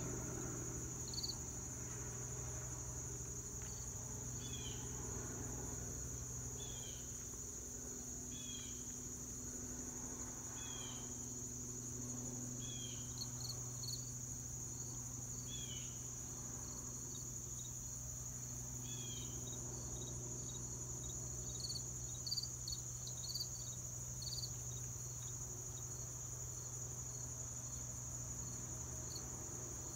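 Crickets trilling steadily in one high, unbroken tone, with a low steady hum underneath.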